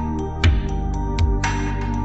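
Background music: a drum beat of low thumps and sharp ticks over held chords.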